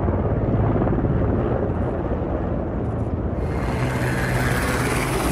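Military helicopter in flight: steady rotor chop and engine noise, with more hiss coming in about three seconds in.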